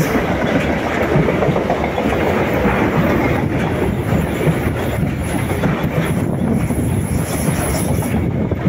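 A freight train of loaded double-deck car-carrier wagons rolling past close by, with a steady loud rumble of wheels on rails. A thin high-pitched squeal joins in a few seconds in and fades near the end.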